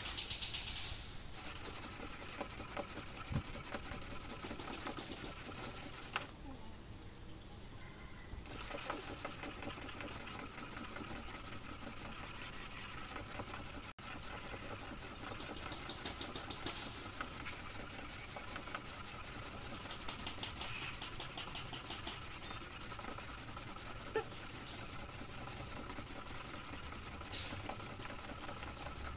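Sandpaper on a small hand block rubbing quickly back and forth over dried red body putty on a car's painted panel, a fast rhythmic rasping that sands the filled clear-coat runs level. It stops for a couple of seconds about six seconds in, then resumes, over a faint steady hum.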